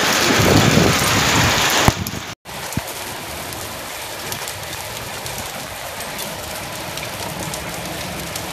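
Hail and rain pelting a concrete rooftop: a dense hiss of rain with many small ticks of hailstones striking. It is louder for about the first two seconds, drops out for an instant, then goes on as a softer, steady patter of ticks.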